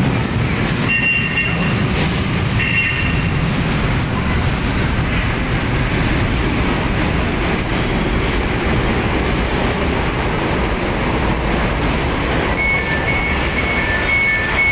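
LRT Line 1 4th-generation light-rail train rolling along the platform and braking to a stop, a steady rumble with a thin high whine for several seconds as it slows. Near the end a two-note electronic beep repeats several times: the train's door chime.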